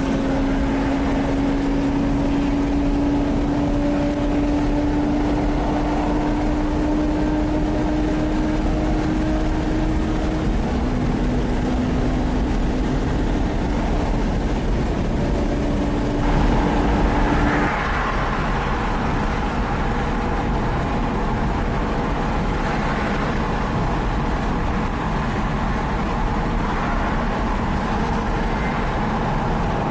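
Lamborghini Gallardo Superleggera's V10 with LOC aftermarket exhaust cruising ahead, heard from a following car: a steady engine drone over road and tyre noise, with a brief louder surge of throttle about 16 seconds in.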